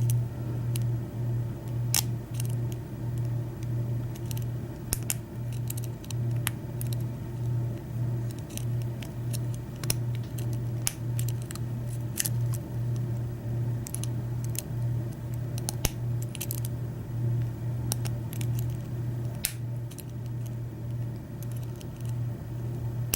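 Scattered small metallic clicks and scrapes of a lock pick and tension wrench working the pin stacks of a 6-pin Schlage KIK lock cylinder held in the hand, over a steady low hum.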